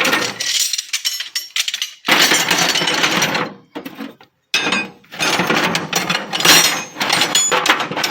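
Metal hand tools clattering and rattling as they are handled and moved around in a steel toolbox, in three stretches with short pauses between them.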